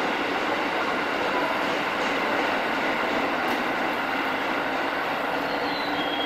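Senseki Line 205-series electric train pulling away from an underground platform into the tunnel: a steady, even running noise of wheels and motors, heard inside the underground station.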